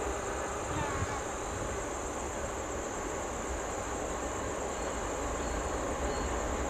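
Insects droning steadily at a high pitch, over a low rumble.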